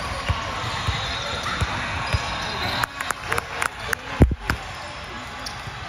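Basketball bounced on an indoor court, a dribble about every half second, then a quicker run of thuds with one loud bounce a little after four seconds, over a steady murmur of gym voices.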